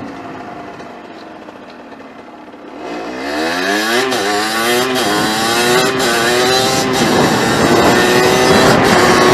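A 50cc motorbike engine accelerating: quieter at first, then rising in pitch from about three seconds in, stepping several times, and running louder and steadier near the end.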